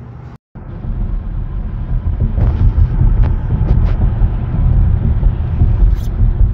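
Steady low rumble of road noise inside a moving car's cabin. It starts about half a second in, after a brief cut, and a few light ticks sound over it.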